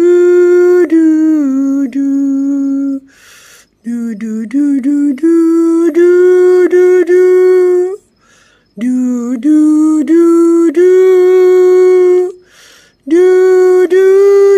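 A person singing a wordless lullaby to settle the animals to sleep: long, held, gently gliding notes in phrases of about four seconds, with a short breath between phrases.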